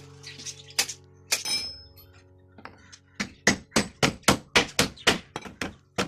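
A hammer striking nails into a wooden frame: a few scattered knocks, then from about three seconds in a fast run of light blows, about five a second.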